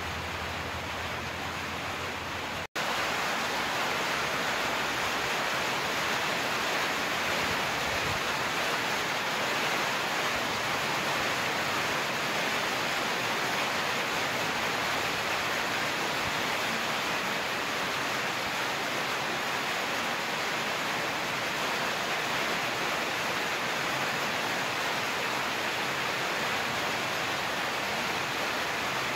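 Steady rain falling, an even hiss, broken by a momentary dropout about three seconds in.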